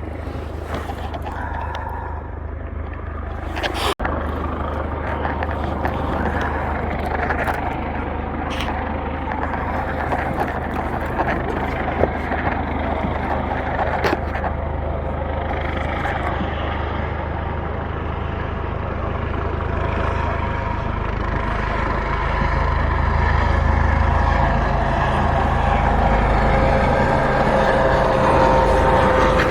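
Coast Guard helicopter hovering nearby: steady rotor and turbine noise, growing louder about two-thirds of the way through.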